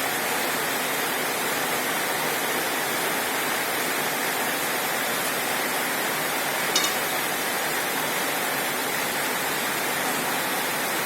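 Steady, even hiss-like background noise, with one brief click and a short high ring about seven seconds in.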